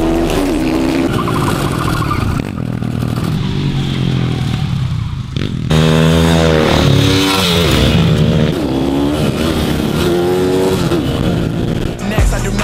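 Supermoto motorcycle engines revving hard, the pitch climbing and dropping over and over as the riders accelerate and back off through the corners. About six seconds in the sound changes abruptly to another bike's engine rising and falling the same way.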